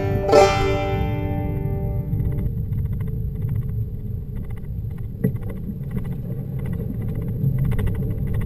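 A final plucked banjo chord rings out and fades over the first two seconds. After that, a car's low, steady road rumble on a rough dirt track, with faint small knocks and one sharper bump about five seconds in.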